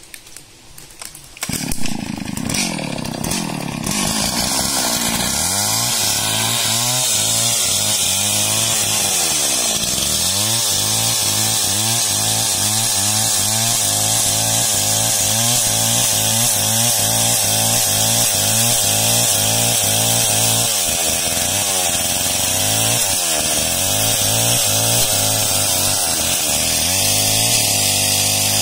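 Small two-stroke chainsaw starts up about two seconds in, then runs at high revs cutting lengthwise through a large log, its engine pitch dipping now and then as the chain bites into the wood.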